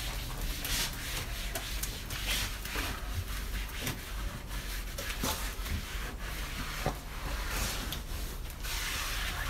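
Wash mitt scrubbing the foam-soaped side of an SUV, a run of wet swishing rubbing strokes against the door and rocker panel.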